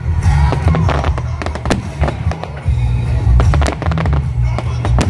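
Fireworks bursting in quick succession, many sharp bangs and crackles close together, over loud music.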